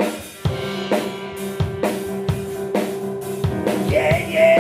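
Live band starting a rock beat: drum kit with kick and snare hitting about twice a second over a held bass note, and a higher held chord coming in near the end.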